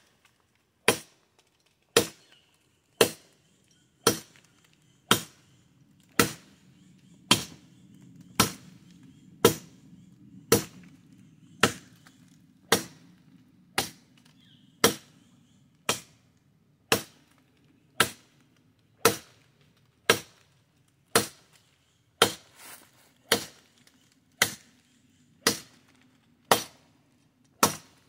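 A sword blade chopping into a knotty tree branch with steady strokes, about one sharp chop a second, some two dozen in a row.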